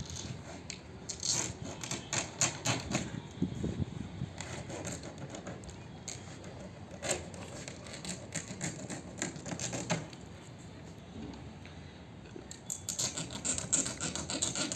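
Plastic packing strap on a cardboard carton being worked at and cut loose by hand: irregular bursts of clicking and scraping, thickest near the end, over a low rumble of wind on the microphone.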